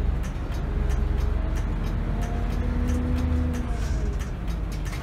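City bus under way, heard from inside the cabin: a steady low engine drone with a faint whine that rises and falls, and light interior rattles and clicks.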